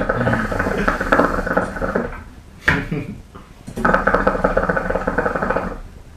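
Shisha water bubbling as smoke is drawn through the base, in two pulls of about two seconds each, with a single sharp click between them.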